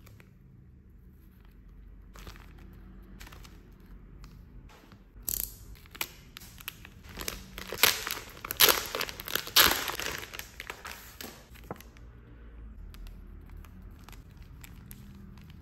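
Clear plastic bag crinkling and rustling as it is pulled open by hand and the card packs are drawn out, loudest for about six seconds in the middle. Quieter handling of the plastic and the card packs near the end.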